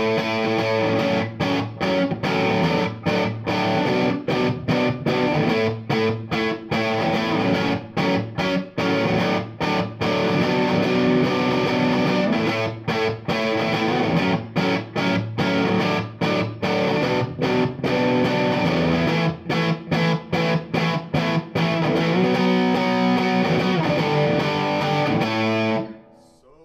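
Duesenberg Starplayer TV electric guitar played through the Risen Legacy amp head's overdriven (dirty) channel and a speaker cabinet: distorted chords and riffs with many short rhythmic breaks, stopping abruptly near the end and leaving a brief ringing decay.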